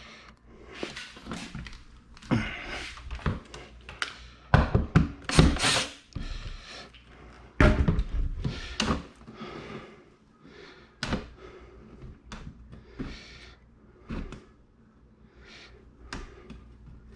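Irregular knocks, clunks and thuds of a TV wall mount being shifted and tapped against a wood-panelled wall while it is being levelled, with a few heavier thumps near the middle.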